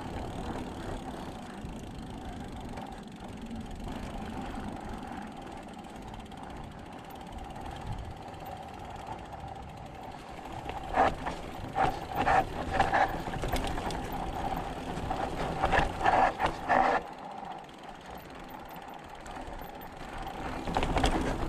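Mountain bike's rear freehub ratchet buzzing steadily as the rider coasts, louder in two clusters of short bursts in the second half, over a low rumble of tyres and wind.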